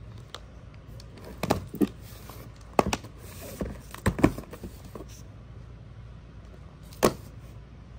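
Irregular clicks and knocks of objects being handled and set down, the sharpest near the end, over a low steady hum.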